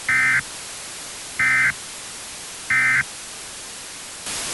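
Emergency Alert System end-of-message (EOM) data bursts: three short, identical bursts of warbling two-tone digital data, about a second and a third apart, signalling the close of the alert. Near the end a louder burst of static hiss begins.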